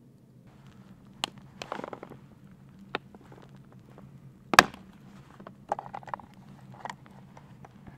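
Small campfire of split kindling crackling, with irregular clicks and pops and one sharp snap about halfway through; hard plastic clicks from a container being handled are mixed in.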